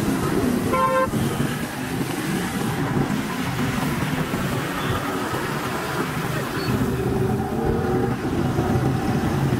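Busy city road traffic, motorcycles and auto-rickshaws running on a wet road, with one short horn toot about a second in.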